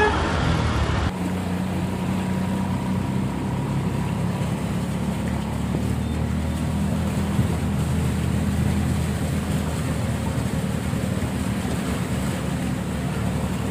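A vehicle engine drones steadily under a constant wash of water and rain noise, heard from inside a vehicle driving through a flooded road.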